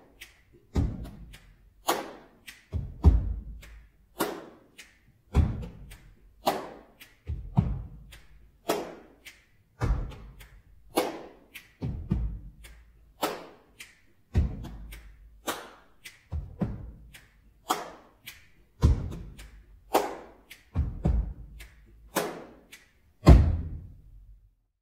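A sparse drum beat: a single heavy hit about once every second, alternating between deep kick-like thumps and sharper snare-like cracks, each ringing out with a short echo. It stops just before the end.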